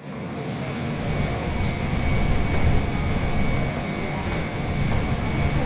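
Subway platform ambience: a steady low rumble with a faint, thin, steady high whine above it.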